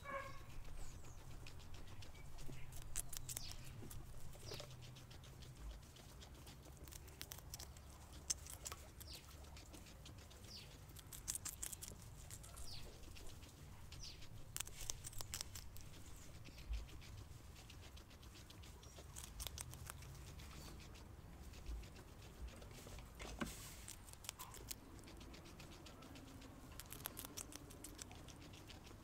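Guinea pig biting and chewing a slice of raw capsicum (bell pepper): faint, crisp crunching in quick clusters of clicks, with short pauses between mouthfuls.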